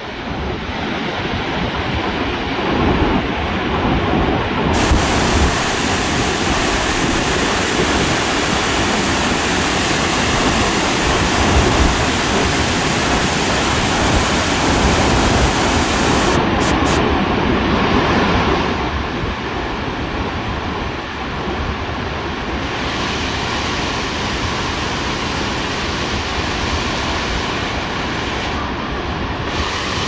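Steady rushing of a waterfall pouring into a plunge pool, a little quieter after about nineteen seconds.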